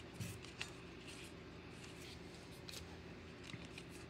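Football trading cards being thumbed off a stack in the hand one at a time: a few faint, irregularly spaced flicks and slides of card stock.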